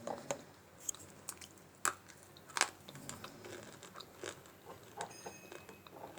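Someone biting and chewing dry Multani mitti (fuller's earth clay), with irregular crisp crunches, the loudest two about two seconds in.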